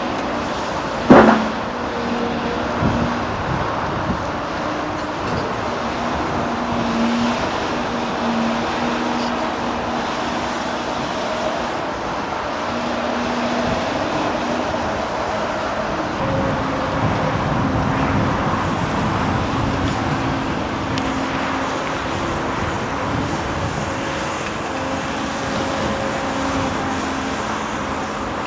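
Large Caterpillar hydraulic excavator working rock, its diesel engine running steadily under hydraulic load, the pitch stepping up and down as it works. One loud clank of rock on steel about a second in.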